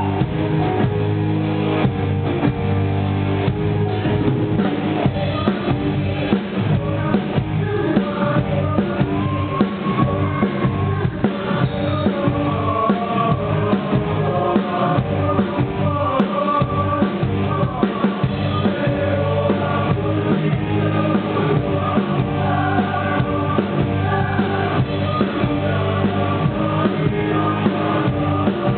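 Live band with drum kit, guitar and keyboard playing an upbeat pop song with a steady beat, and a choir singing along.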